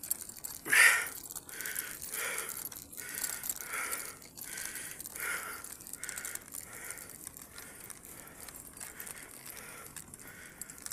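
A cyclist panting hard in a steady rhythm, about one and a half breaths a second, while pedalling up a steep climb, with the strongest breath about a second in.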